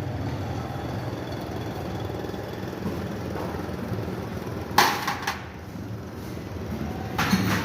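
Motorcycle engine idling steadily, with a single sharp knock about five seconds in.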